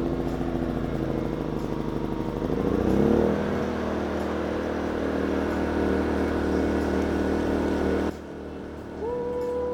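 Small inverter generator engine, just started on choke after a carburetor replacement, running and picking up speed about three seconds in, then holding a steady speed without hunting. About eight seconds in the sound drops abruptly, and a held steady tone starts near the end.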